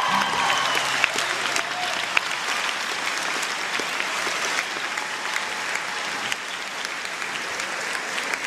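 A large audience applauding steadily, a dense patter of many hands clapping that eases off slowly.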